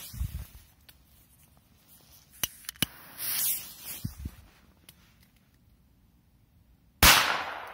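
Korsar 3 firecracker going off: a couple of faint clicks and a short hiss a few seconds in, then one sharp, very loud bang near the end with a short echoing fade.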